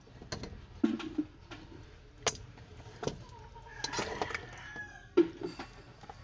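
Chickens clucking, with irregular sharp knocks and clicks throughout.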